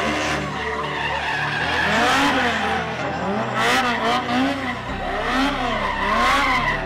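Car doing a burnout or donuts: the engine revs up and down in quick repeated swells while the tyres squeal and skid.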